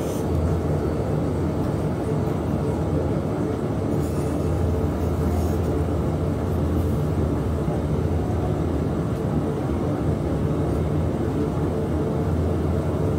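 Potter's wheel running: a steady low hum and rumble that stays even throughout.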